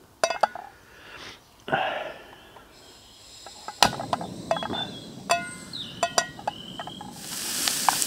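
Metal clinks and knocks of a frying pan and utensils on a small camping stove, then, about seven seconds in, sizzling starts as food goes into the hot oil in the pan.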